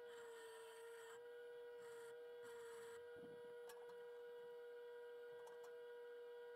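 Near silence: a faint steady hum, with a few faint ticks.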